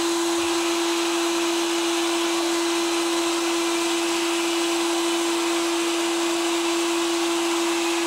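Motorized equine dental float running steadily as it files a horse's teeth: an even hum at one unchanging pitch over a grinding hiss.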